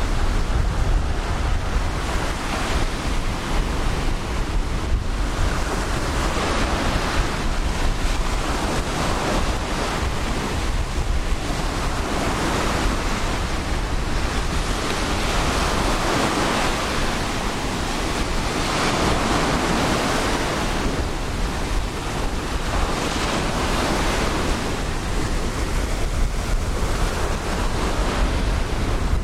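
Ocean surf washing onto a sandy beach, the hiss of the breaking waves surging every few seconds, with wind buffeting the microphone as a steady low rumble underneath.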